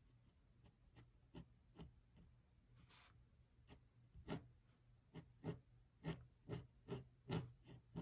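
Dip pen nib scratching on paper in a series of short strokes, a few spaced ones at first, then a quicker, louder run of about two a second over the second half.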